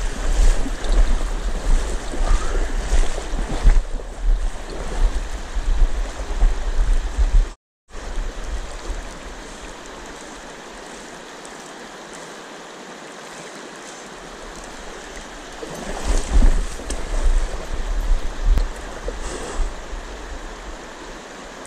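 Fast river current rushing over a shallow riffle, with heavy low rumble on the microphone for the first several seconds. The sound cuts out for a moment about eight seconds in, then the water rush runs on steadier and quieter, swelling louder again for a few seconds near the end.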